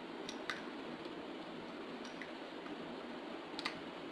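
A few light clicks of plastic toy tubs and figures being handled on a tabletop, two near the start and one near the end, over a steady low hum.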